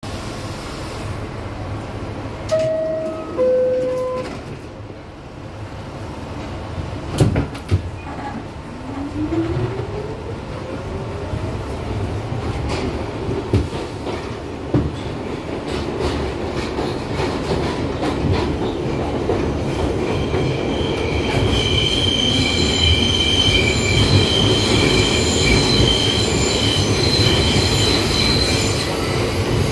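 Inside an R62 subway car, a two-tone falling door chime sounds, the doors shut with a knock about seven seconds in, and a whine rises in pitch as the train pulls out. Over the steady rumble of the running train, the wheels squeal with a high steady whine through the second half.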